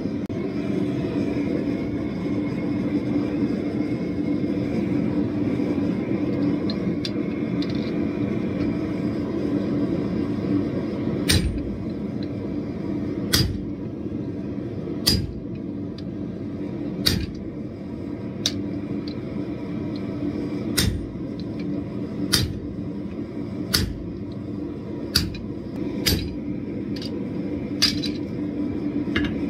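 Gas forge burner running steadily. About eleven seconds in, a hand hammer starts striking a red-hot steel bar on the anvil: about a dozen sharp blows, roughly one every second and a half.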